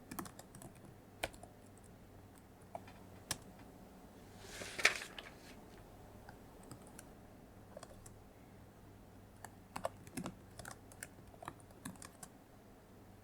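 Computer keyboard typing in slow, scattered keystrokes, with a quicker run of keys between about nine and a half and twelve seconds in. A short soft swell of noise comes about five seconds in.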